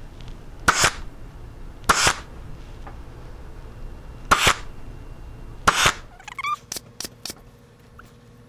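Pneumatic upholstery staple gun firing four times, one sharp shot every second or so, driving staples through the fabric into the ottoman's wooden frame. After that come a few lighter clicks and a brief wavering tone.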